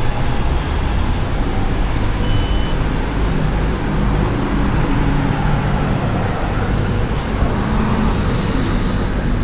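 Steady rumble of road traffic, with a short high beep about two and a half seconds in.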